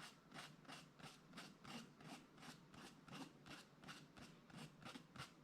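Faint, quick, rhythmic strokes of a hand tool on paper, about three or four a second, each a short scratchy rasp.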